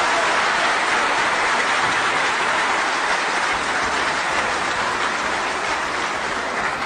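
Large crowd in a big hall applauding and cheering, a dense, loud wash of clapping that eases off slightly near the end.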